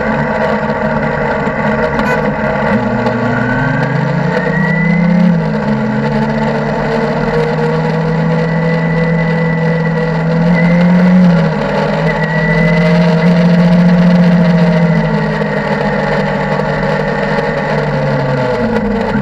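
Motorcycle engine under way, its pitch climbing and dropping back in steps with gear changes and easing off near the end, over a steady rush of wind noise.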